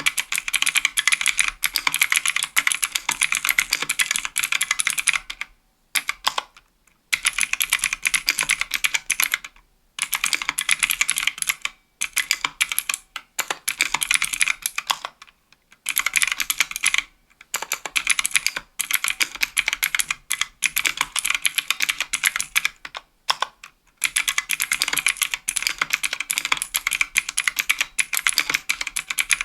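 Fast typing on a 60% aluminium mechanical keyboard with Kailh Pro Light Green clicky switches under GMK keycaps: a quick stream of sharp, crisp clicks, broken by short pauses every few seconds.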